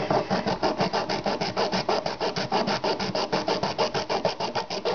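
Small hacksaw cutting through the plastic housing of a Sawyer water filter in rapid, even back-and-forth strokes.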